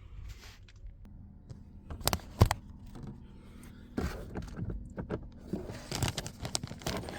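Plastic knocks and clicks from a 2024 Toyota RAV4's glove box as its sides are pressed in to release the stops, with a sharp pair of knocks about two seconds in and a busier run of small knocks and handling noise from about four seconds on.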